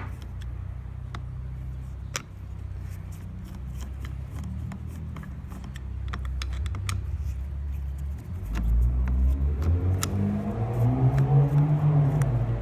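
VW Polo 6N's 1.0-litre four-cylinder petrol engine running at a steady idle, then louder from about two-thirds of the way in, its pitch rising and falling as it is revved. Light clicks are scattered throughout.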